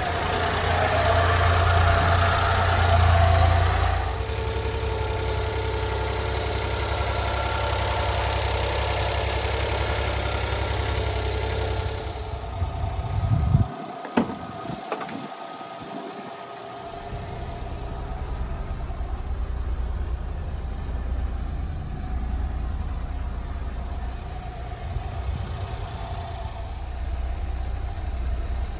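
Honda Acty kei truck's small three-cylinder engine idling steadily. About halfway through there are a few sharp clicks and knocks as the door latch is pulled and the door is opened, and after that the idle is quieter.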